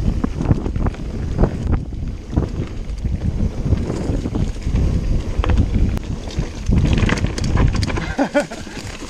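Mountain bike ridden fast over a rough woodland dirt trail: wind rushing over the microphone, the rumble of tyres on dirt and a constant clatter of knocks and rattles from the bike over roots and bumps. A few short higher-pitched sounds come in near the end.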